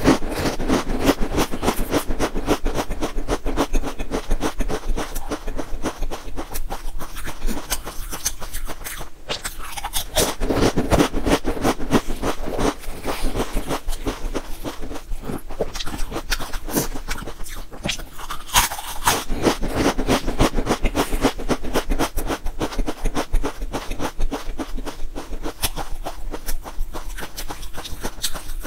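Close-up crunching and chewing of potato chips: a fast, dense run of crisp crackles as the chips are bitten and chewed.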